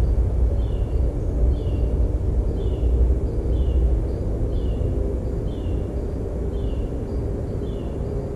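A steady low rumble, with a faint short chirp repeating evenly a little more than once a second.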